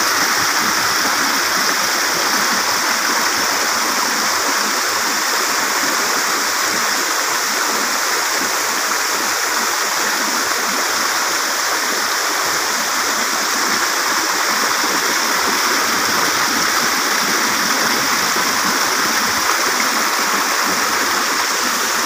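Waterfall water rushing in a steady, even roar that does not change.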